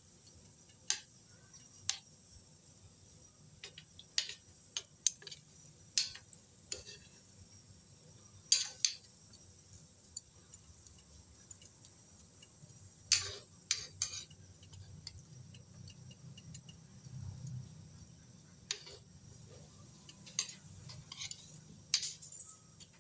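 Kitchen utensils and dishes clinking: irregular sharp clinks with a short ring, sometimes in quick pairs, over a faint low hum.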